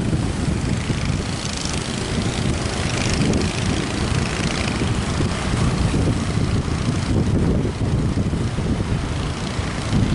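Strong wind blowing over the microphone: a loud, steady rumbling rush with hiss above it.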